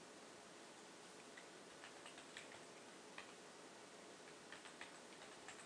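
Faint scattered clicks of a computer keyboard and mouse over steady low hiss: a short word being typed and a few mouse clicks.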